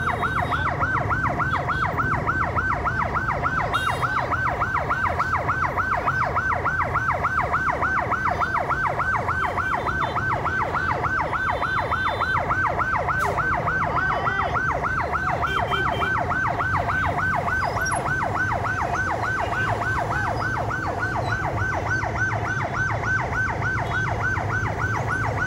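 Fire truck siren on a fast yelp, its pitch sweeping up about four to five times a second without a break, over the low rumble of idling engines.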